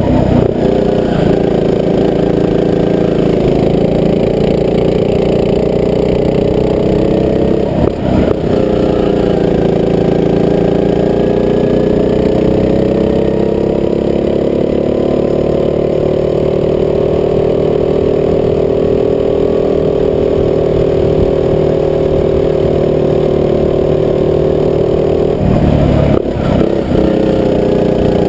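Rental go-kart engine running hard, its pitch rising and falling with the revs. The revs drop briefly about eight seconds in and again near the end, then climb back.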